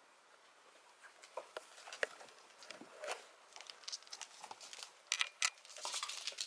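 Scattered light taps and clicks of pets' paws and claws on a laminate floor, growing busier after about five seconds with a patch of scratchy noise near the end.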